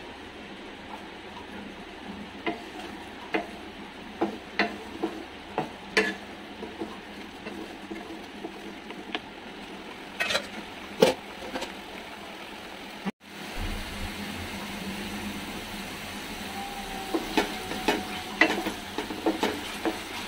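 Ginger, garlic and chilli paste frying in oil in a steel kadai, with a steady sizzle. A wooden spatula stirs and scrapes it, knocking against the pan at irregular moments.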